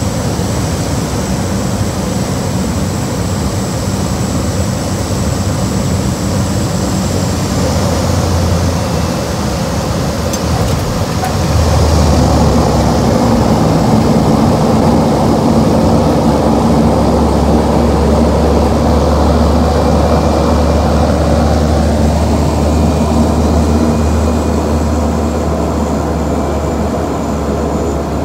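Cabin sound of a Cessna 208B Grand Caravan's single turboprop engine and propeller during landing. About twelve seconds in the sound grows louder and deeper and stays so as the plane rolls along the runway.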